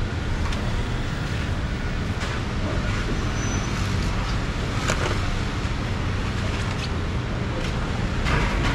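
Steady low rumble of traffic-like background noise, with scattered light clicks and taps from knives and plastic fruit boxes being handled.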